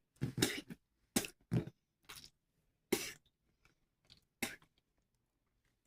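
About six short, separate crunchy rattling noises with pauses between them, from hands working with slime-making materials, such as sprinkles going into water slime.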